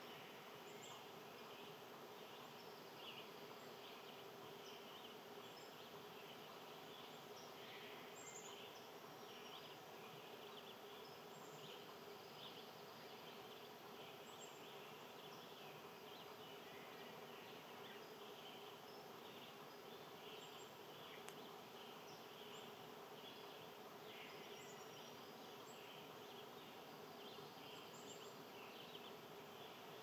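Faint outdoor nature ambience: a steady insect buzz with scattered faint high bird chirps.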